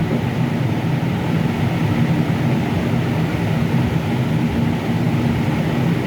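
Steady low droning hum, like a running machine, holding even throughout.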